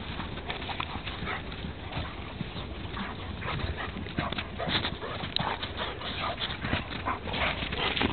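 Two dogs, a Wirehaired Vizsla and a Spinone Italiano, play-fighting in snow: irregular scuffling and crunching of paws in the snow, mixed with dog noises, getting busier toward the end.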